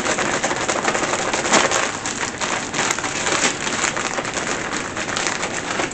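Chicken pieces being shaken in a plastic bag of flour to coat them: a dense, steady rustle and crinkle of plastic with a few sharper crackles.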